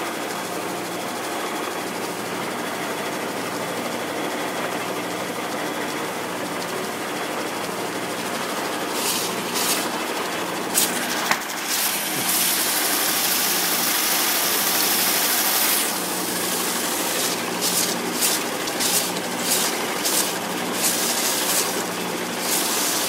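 Shopsmith-powered homemade belt sander running steadily, its motor driving the sanding belt through a gearbox. From about nine seconds in, a guitar fretboard swung in a radius jig meets the belt with bursts of gritty sanding hiss: one long stretch in the middle, then a quick series of short strokes near the end.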